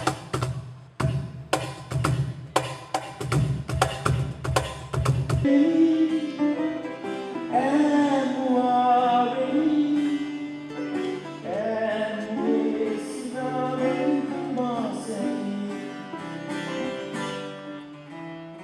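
Band sound check: drums struck repeatedly, about two hits a second, for the first five seconds or so. Then a slow melody of long held, wavering notes plays over a steady low bass line.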